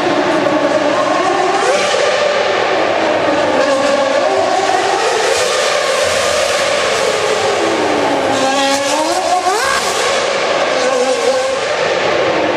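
Racing car engine revving hard, its pitch swinging up and down continuously over a steady hiss of noise. About eight seconds in, the revs sag low and then climb steeply.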